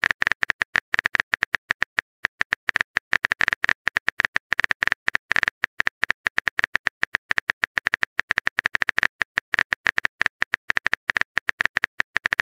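Typing sound effect: a fast, uneven run of short keyboard clicks, several a second, that does not let up.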